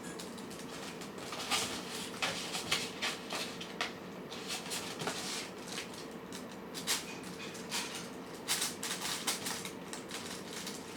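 Cats and kittens eating from their dishes: irregular small crunches and clicks, some in quick clusters, over a faint steady hum.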